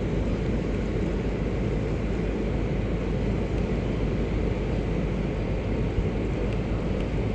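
Steady, flickering low rumble of wind buffeting a body-worn camera's microphone.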